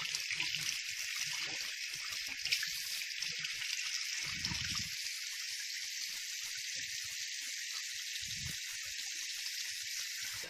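Water running steadily from a tap fed by an electric water heater, opened to test whether the heater is now warming the water.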